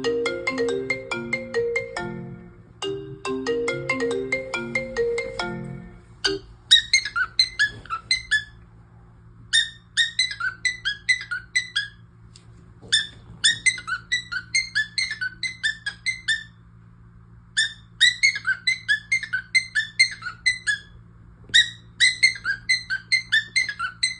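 An alarm ringtone plays a bouncy melody for about six seconds, then stops. A pet parrot then mimics it in several bursts of rapid, high, chirpy notes with short pauses between them.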